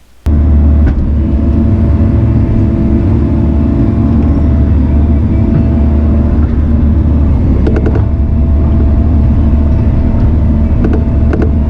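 Diesel engine of a heavy earthmoving machine running steadily at high revs while working, with a few light clanks of the machine over it.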